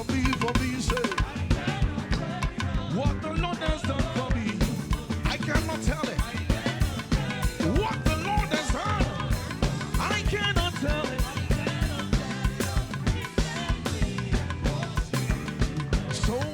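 Live gospel band music: a drum kit keeps a fast, steady beat with snare and bass drum under bass and melody instruments.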